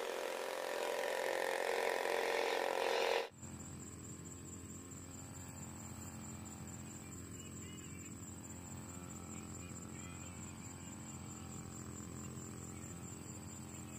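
Engine drone of a passing passenger riverboat, growing louder, then cut off suddenly about three seconds in. After that, insects call steadily with a thin high whine over a low hum from the riverbank.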